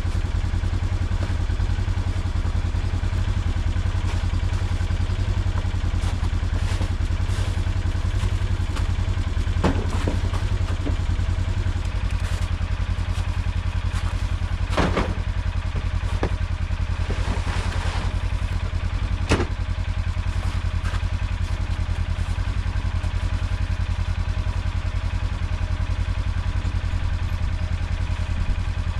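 Ranger utility vehicle's engine running steadily with a deep low rumble, with a few sharp clunks and rattles about ten, fifteen and nineteen seconds in.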